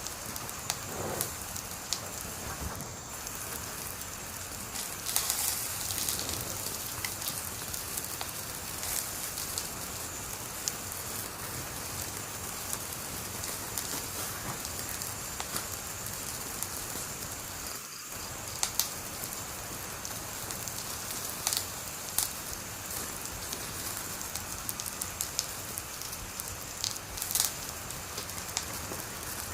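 Wood fire crackling, with frequent sharp pops over a steady hiss and a few louder snaps about five seconds in and near the end.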